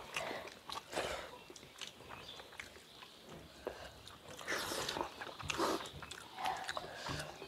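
Eating by hand from steel plates: fingers mixing rice and fish curry and scraping across the metal, with chewing of a mouthful. Irregular clicks and small noises throughout, loudest a little past the middle.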